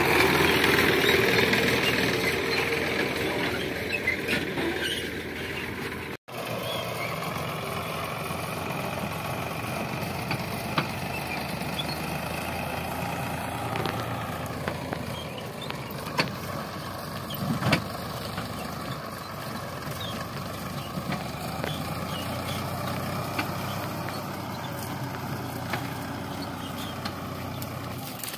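Sonalika DI 745 III tractor's diesel engine running steadily as it pulls a heavily loaded trolley, loudest in the first few seconds. The sound cuts out for an instant about six seconds in, and a few light knocks come later.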